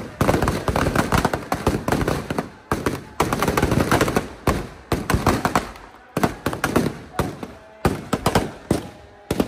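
Firecrackers packed inside a burning effigy going off in a dense, irregular barrage of bangs and crackles, thinning to separate loud bangs about twice a second in the last few seconds.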